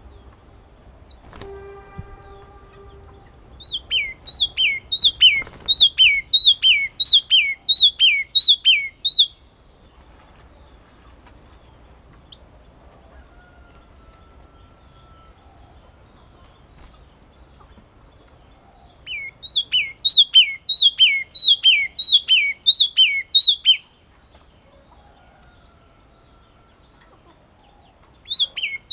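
A yellow-cheeked tit singing: loud bouts of a repeated two-note phrase, each note falling in pitch, about two phrases a second, starting about four seconds in, again past the middle, and near the end. A steady horn-like tone sounds in the first few seconds.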